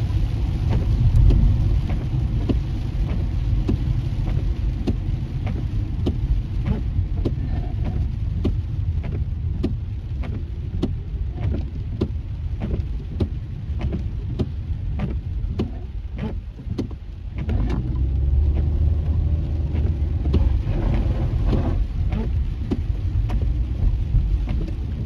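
Heavy rain on a moving car, heard from inside the cabin: many small raindrop taps on the windshield and roof over a steady low road rumble. The rumble eases briefly, then grows louder again about two-thirds of the way through.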